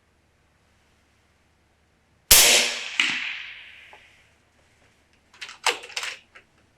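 FX Impact M3 PCP air rifle firing one shot: a sharp report with a tail that fades over about two seconds, and a second, fainter crack less than a second after it. Near the end comes a quick series of metallic clicks as the side lever is cycled to load the next pellet.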